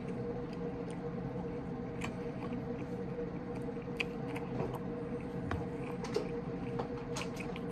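Quiet eating sounds: chewing, with a few scattered light clicks of a fork against a plate, over a steady hum.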